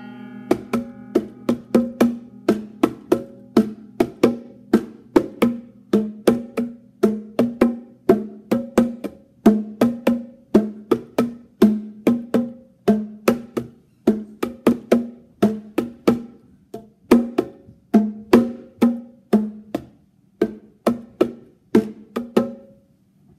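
Bongo drums played by hand in a loose rhythm, about two strokes a second, each stroke ringing briefly at a low or higher pitch, with a few short pauses in the second half.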